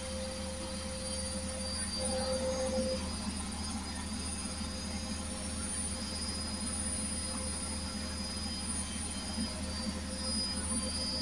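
Beko washing machine running, a steady low hum with a thin high whine over it.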